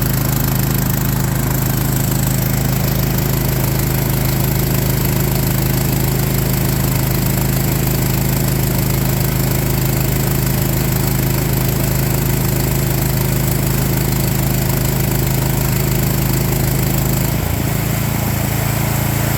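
Harbor Freight small gas engine running steadily on an engine-swapped air compressor. About two seconds before the end its note changes.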